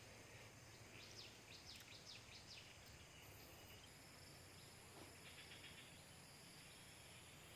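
Near silence: faint outdoor ambience, with a quick run of faint high chirps a second or two in and a faint high trill about five seconds in.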